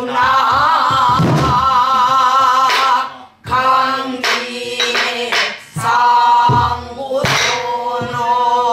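A small mixed group singing a Korean folk song together in long, wavering held notes, with occasional strokes on sori-buk barrel drums under the voices.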